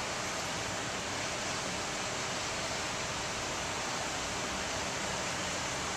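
Steady, even rushing noise with no separate events, voices or changes in level.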